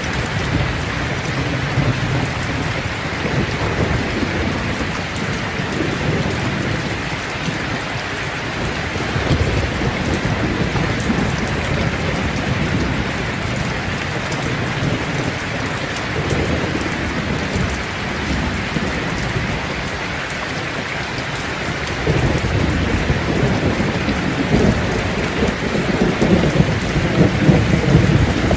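Steady rain with low rolling thunder. The thunder rumble swells louder about three-quarters of the way through.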